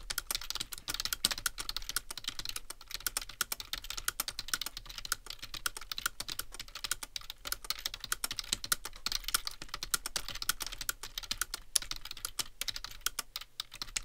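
Fast, continuous typing on a computer keyboard, a dense run of key clicks at about 89 words per minute.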